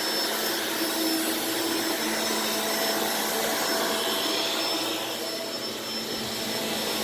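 Shark upright vacuum cleaner running steadily, an even rushing noise with a steady whine.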